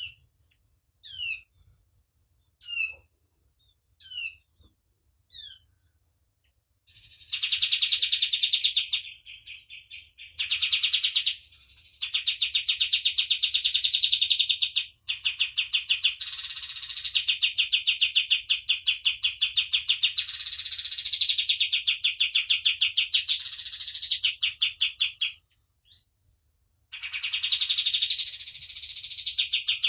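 Kapas tembak songbird singing: five short down-slurred chirps about a second and a half apart, then a long, very fast rattling trill. The trill breaks off briefly a few times, and louder notes sweep up and down over it several times.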